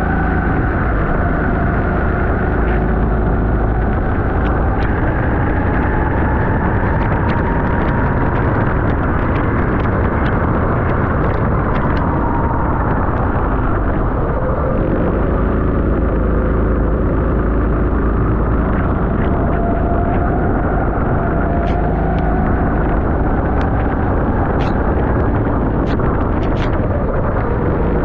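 Onboard sound of a racing go-kart's engine running hard on a wet track, its pitch slowly rising and falling with speed through the corners. Heavy wind and water-spray noise run underneath.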